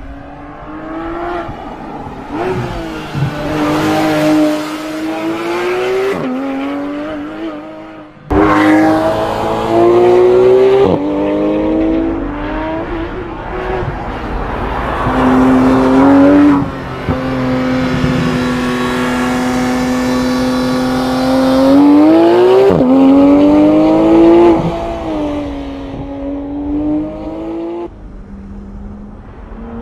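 Porsche 911 GT3 RS's naturally aspirated flat-six exhaust, revving up through the gears with sudden drops in pitch at the shifts. It holds a steady pitch for about five seconds in the middle, climbs sharply again, then eases off near the end.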